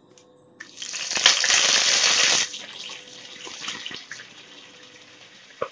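Fresh curry leaves hitting hot oil in an aluminium pressure cooker: a loud burst of sizzling about half a second in that lasts about two seconds, then settles to a soft, steady sizzle.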